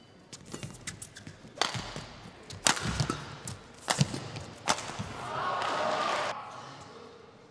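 Badminton rally: rackets striking the shuttlecock with sharp cracks, the loudest roughly a second apart. About two thirds of the way through there is a rushing noise lasting about a second.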